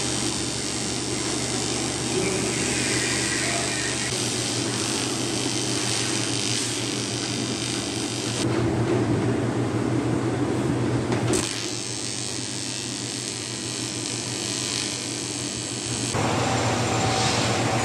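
TIG welding arc on a cracked aluminium alloy wheel rim, a steady hiss over a constant low hum. The sound changes abruptly about 8 and 11 seconds in and again near the end.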